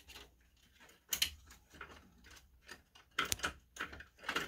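Scattered light clicks and taps at irregular intervals, the loudest about a second in and a cluster a little after three seconds in.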